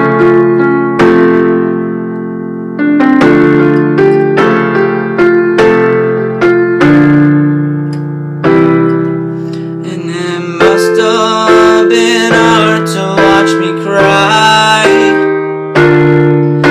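Piano playing an instrumental passage of slow chords, each struck and left to ring, about one to two a second. From about ten seconds in, a higher, wavering melody joins over the chords.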